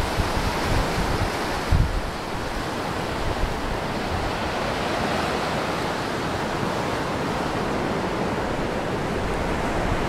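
Steady rush of surf breaking on the shore below, mixed with wind, which buffets the microphone briefly about two seconds in.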